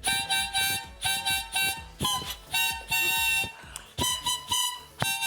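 Harmonica playing a tune in short rhythmic chords, mostly in pairs of about half a second each, with one longer held chord about three seconds in.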